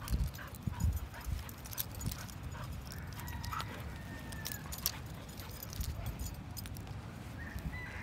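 Footsteps on grass with rubbing and bumping from handling the phone, and a faint thin whine about three seconds in and again near the end.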